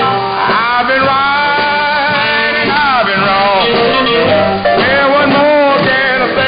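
Music with singing, played from an off-air recording of a shortwave pirate radio broadcast on 6934 kHz AM.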